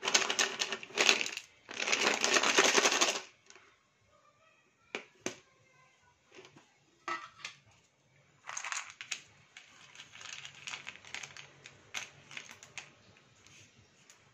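Slate pencils clattering against each other in a bowl: a loud, dense rattle for about the first three seconds as the bowl is shaken, then scattered clicks and a longer spell of light clattering as a hand stirs through the sticks.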